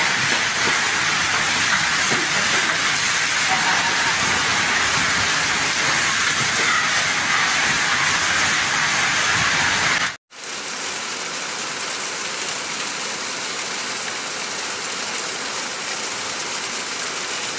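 Steady rush of floodwater pouring down a narrow concrete alley. About ten seconds in it cuts off suddenly to a slightly quieter, even hiss of heavy rain falling on a street.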